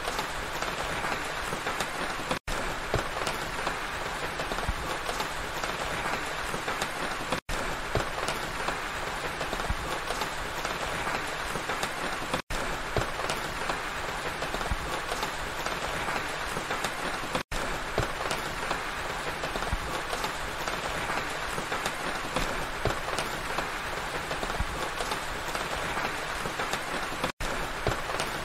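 Steady rain falling on pine trees, an even patter. It is cut by a few split-second gaps of silence spaced about five seconds apart.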